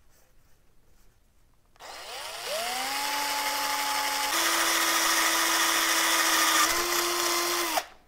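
Cordless drill starting about two seconds in, its motor whine rising to speed and then running steadily, stepping up in pitch about halfway, as it re-drills a blocked wire hole through the taillight mounting plate; it stops just before the end.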